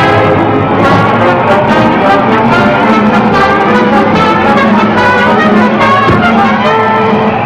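Orchestral cartoon score with prominent brass, trombone and trumpet playing held and moving notes over a steady low line.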